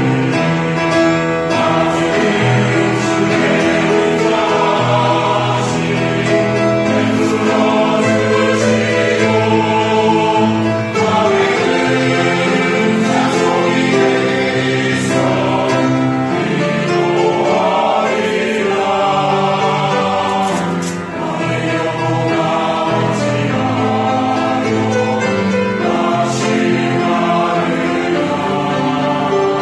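Church choir singing a sacred anthem in sustained, full chords.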